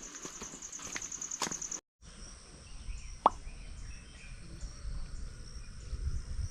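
Insects chirping outdoors: a rapid pulsing high trill, then after a brief dropout a steady high insect drone. About three seconds in comes a single sharp plop with a quickly falling pitch.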